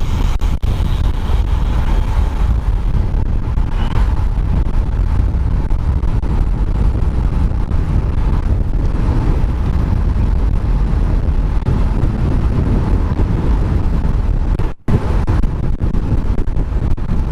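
Wind buffeting the microphone of a helmet-mounted action camera on a bicycle descending at about 30 mph: a steady, loud low rumble that drops out for an instant near the end.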